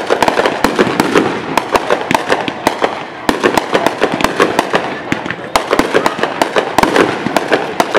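Aerial fireworks bursting one after another: a dense run of sharp bangs and crackles, several a second.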